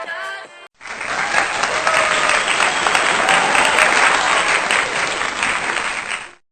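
Audience applauding and cheering, starting suddenly about a second in and cutting off abruptly near the end; the tail of background music fades out just before it.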